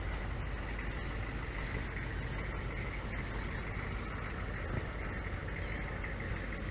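A vehicle engine running steadily at low speed, with a constant rumble and road noise.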